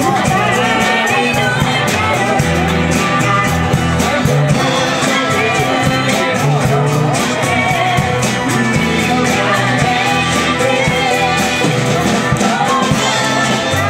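Live band playing a song, with two women singing the melody together over acoustic guitar, electric bass, keyboard and drums keeping a steady beat.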